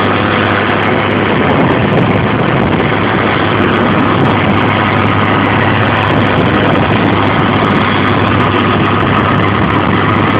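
Heavy machinery running steadily: a TOZAMET FG-650B soil stabilizer working and mixing soil, a loud, even engine noise with a constant low hum.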